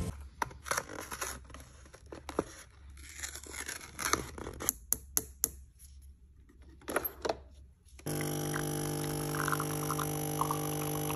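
Clicks and knocks of a coffee capsule being handled and loaded into a De'Longhi Nespresso capsule machine. About eight seconds in, the machine's pump starts with a sudden, steady hum as it brews a double shot of espresso.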